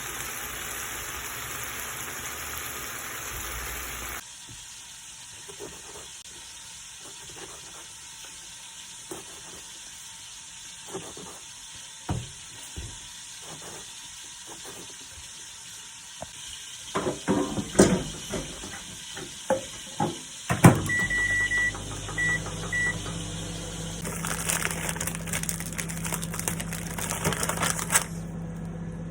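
Kitchen work sounds: scattered knocks, then a burst of clattering. Three short high electronic beeps from an appliance follow. After that comes a steady low appliance hum with a spell of hissing.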